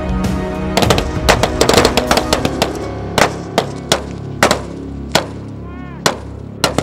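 Background music overlaid by sharp, irregular gunshots from a machine gun: a rapid flurry in the first couple of seconds, then single shots every half second to a second.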